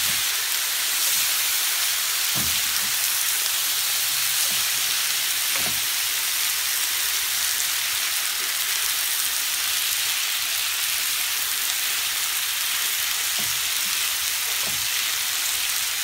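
Spelt noodles and vegetables sizzling steadily in oil in a frying pan while being stirred, with a few soft knocks of the spatula against the pan.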